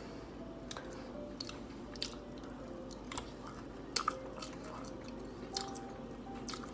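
A person chewing food, with scattered sharp mouth clicks, over faint background music.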